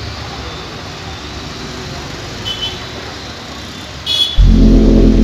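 Diesel dump truck's engine running steadily, with two short high beeps. About four seconds in, a sudden, much louder low steady drone starts and becomes the loudest sound.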